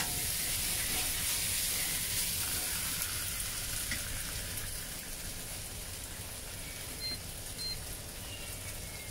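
Curry beef brisket and potatoes sizzling in a wok, a steady frying hiss that slowly dies down.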